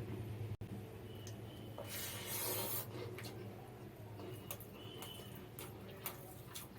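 Eating mutton biryani by hand: fingers mixing and scraping rice on a plate, with a rustling scrape of about a second around two seconds in and scattered small clicks, over a steady low hum.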